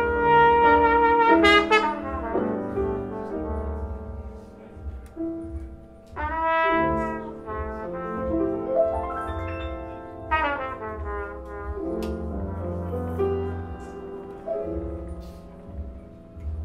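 Trumpet playing short melodic phrases with gaps between them, over a live jazz band's accompaniment of upright bass and piano.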